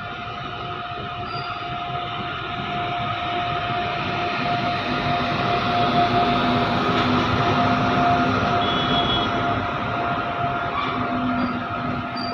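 Indian Railways electric locomotive passing close by at the head of a freight train of covered goods wagons: the rumble of the locomotive and wagon wheels grows louder to a peak about halfway through as the locomotive goes by, with a steady whine throughout.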